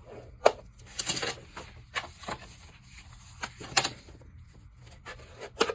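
Paper and cardstock being handled on a tabletop: a sharp tap about half a second in, then a run of short rustles and taps as the pieces are laid in place.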